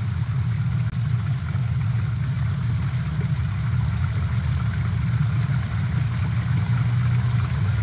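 A steady low rumble, with no speech over it.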